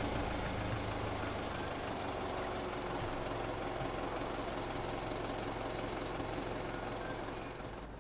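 Car engine running steadily, heard as an even hum and rumble.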